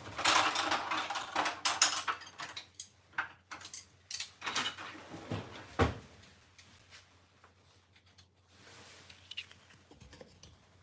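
Kitchen utensils clattering and clinking for about the first two seconds, then a few separate sharp knocks between about four and six seconds in.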